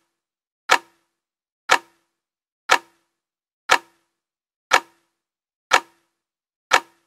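Countdown sound effect: a sharp clock-like tick once a second, each with a brief low ring, seven ticks in all.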